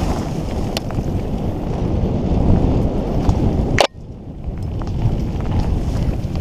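Wind rushing over a helmet camera's microphone, mixed with the rumble of a mountain bike riding down a dirt trail. A sharp knock comes a little before four seconds in, after which the rumble drops for a moment and then builds again.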